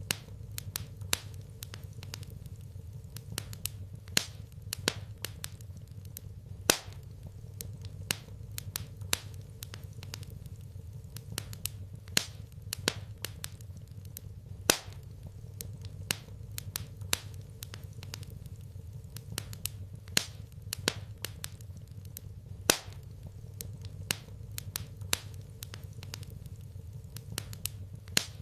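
Wood fire crackling in a fireplace: irregular sharp pops and snaps, some much louder than others, over a steady low hum.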